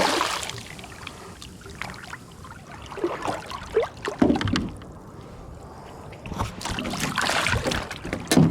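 Irregular splashing and sloshing of water at a paddleboard as a hooked redfish is played in, in several uneven bursts over a low water hiss.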